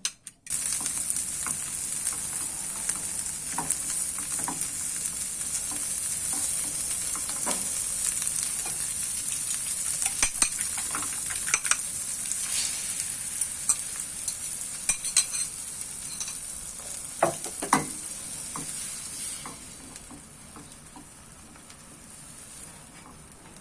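Food frying in a hot pan: a steady sizzle with scattered clicks of a utensil stirring it. The sizzle drops away sharply a few seconds before the end, leaving a fainter one.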